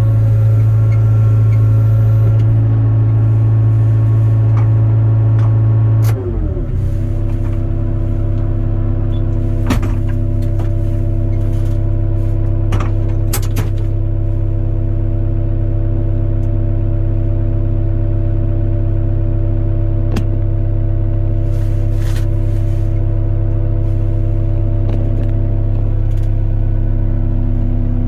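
Hyundai 02-class excavator's diesel engine running steadily. About six seconds in, its speed drops to a lower steady note. A few light clicks and knocks occur while it runs.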